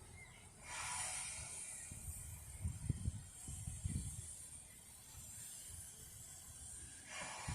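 Narrow-gauge steam locomotive letting off steam: a hiss about a second in and another near the end, with low rumbling in between.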